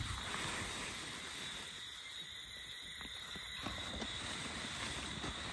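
Quiet outdoor evening ambience: a steady high-pitched insect drone, with a few faint rustles and light clicks.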